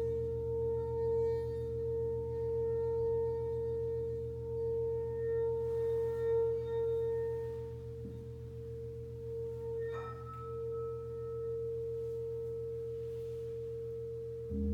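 Metal singing bowl ringing with a steady, slowly pulsing tone over a low gong hum. About ten seconds in another bowl is struck and rings higher, and right at the end the large gong is struck with a mallet and swells up.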